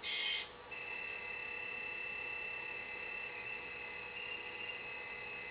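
A homemade oscillator circuit driving small lamps gives off a steady high-pitched electronic whine once it starts oscillating. The whine begins about a second in, after a short chirp.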